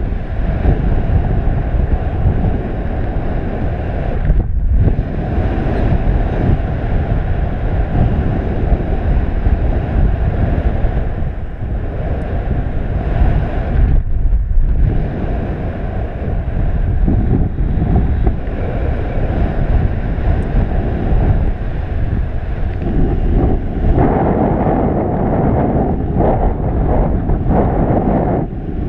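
Airflow from a paraglider in flight rushing over the pilot's camera microphone: a loud, steady wind rush, with brief lulls about four and a half and fourteen seconds in.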